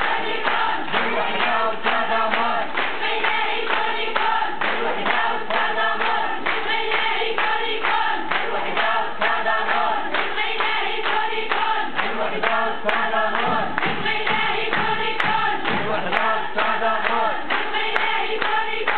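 A large crowd of women chanting in unison, with steady rhythmic hand-clapping.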